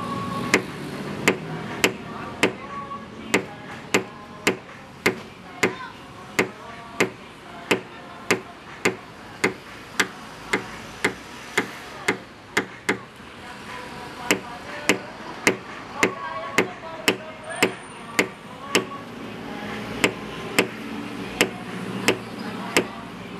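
Light metal taps on a car body panel from a paintless dent repair tap-down tool and hammer, struck at an even pace of about three taps every two seconds: the panel's high spots being knocked down during the repair.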